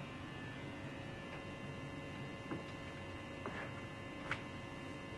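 Steady electrical mains hum with a few faint knocks spread through the second half.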